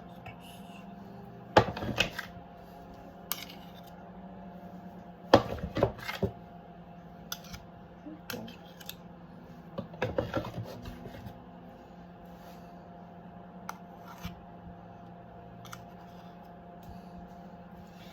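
Kitchen utensils clinking and scraping against baking dishes in short bursts of sharp taps, about two, six and ten seconds in, with single ticks between, over a steady low hum.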